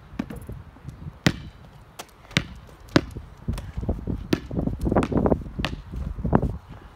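Basketball bouncing on an asphalt driveway: a series of sharp bounces, some half a second to a second apart, mixed with a child's quick footsteps as she chases the ball.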